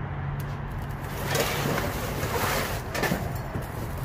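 Cardboard boxes and their contents being shifted and rummaged through, a rustling, scraping spell with a few knocks in the middle, over a steady low hum.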